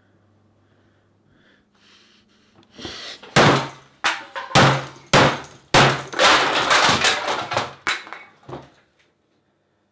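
A rapid run of heavy smashing blows with crashing and breaking, starting about three seconds in and ending near the end: something is being beaten and broken.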